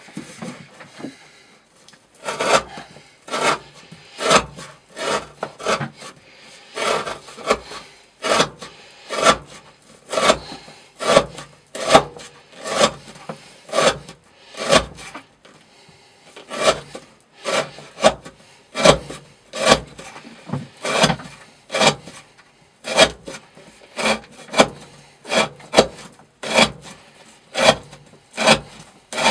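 Knife blade drawn repeatedly through rope in a cutting-wear test, a rhythmic slicing stroke about every three-quarters of a second, starting about two seconds in.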